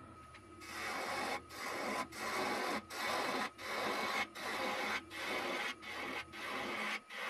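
Turning tool cutting into a spinning stone pine blank on a wood lathe, in a run of short repeated cuts about one every three-quarters of a second, starting just under a second in. The lathe motor hums faintly underneath.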